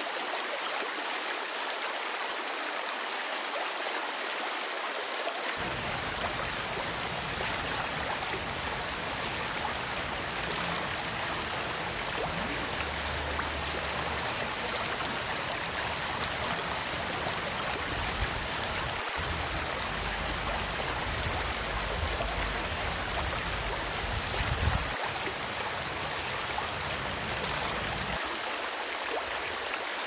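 Shallow mountain stream running over a rocky bed: a steady rush of water.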